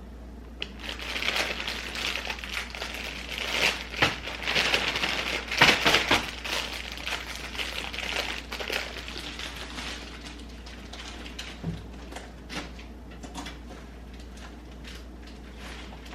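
Plastic wrapping crinkling and rustling as food is handled, dense and crackly for about the first ten seconds, then thinning to a few scattered light clicks and taps.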